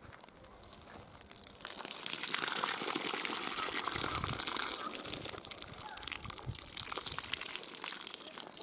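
Water splashing and sloshing in a metal pot as chicken drumsticks are rinsed by hand, starting about two seconds in. Near the end the water is poured out of the pot onto the ground.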